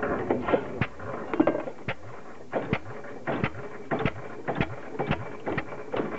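An old single-cylinder stationary engine running slowly, its exposed valve gear clacking in a run of sharp knocks, about three a second.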